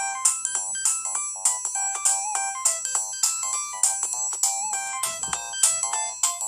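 Siemens SL55 mobile phone playing one of its original ringtones: a synthesized polyphonic melody over a steady beat, about five hits every three seconds.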